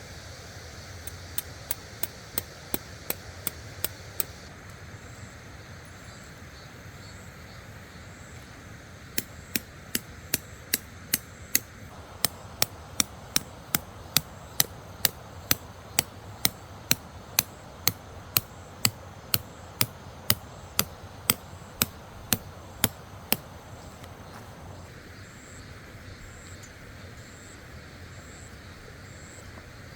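Rhythmic hammer blows, about two a second, in two runs: a short one near the start and a longer one from about nine seconds in to about twenty-three seconds. Under them is the steady rush of fast-flowing water.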